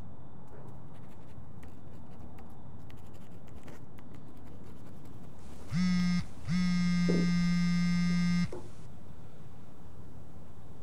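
Smartphone vibrating against a desk for an incoming text message: a short buzz about six seconds in, then a longer buzz of about two seconds. Before it, faint light ticks of a pen writing on paper.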